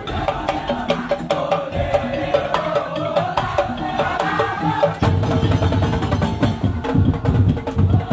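Live traditional percussion ensemble playing: fast knocking wood-block-like strokes and drums under a wavering melodic line, with the drumming growing heavier about five seconds in.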